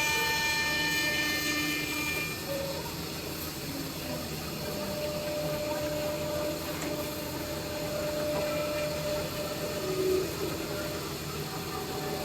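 Woodworking CNC machining center running: a steady mechanical hiss and hum with whining spindle tones that shift in pitch as it machines.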